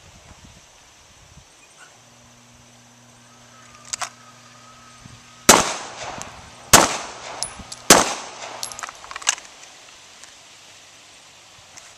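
Three pistol shots from a Springfield Armory XD about a second apart, each sharp crack ringing out, followed by a few fainter cracks. A steady low hum runs under the shooting and stops soon after it.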